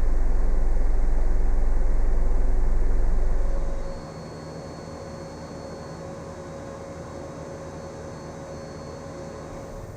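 Ventilation system noise: a loud, low, steady rumble that falls away about four seconds in to a quieter, steady airflow hiss with a faint high whine.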